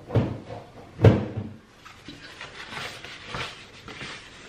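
Two knocks from a kitchen cabinet being opened and shut, the louder about a second in, followed by the rustle of a cotton tea towel being shaken out and unfolded.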